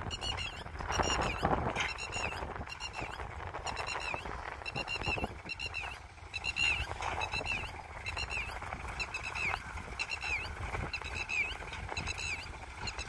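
A bird calling over and over in short sharp notes, about two a second. Underneath it, cow-dung manure is scraped and dropped out of a tractor trailer by hand, over a low rumble.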